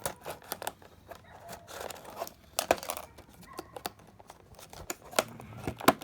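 Toy packaging being torn and crinkled open by hand: irregular sharp snaps and crackles with short bursts of rustling.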